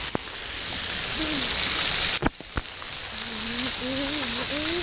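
Water from a pool play structure's jets and fountains spraying and splashing steadily onto a GoPro and the wearer, a continuous hiss. It cuts out briefly about two seconds in.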